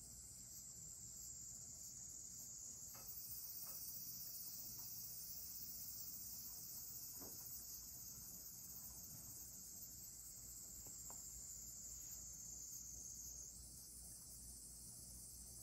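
Faint, steady, high-pitched chorus of insects chirring, a little louder through the middle stretch, with a few soft ticks.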